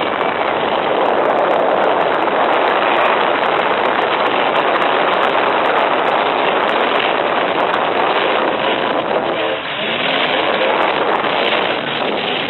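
Many full-size trucks' engines running and revving together in a demolition derby, a loud dense noise; one engine's pitch rises about nine seconds in.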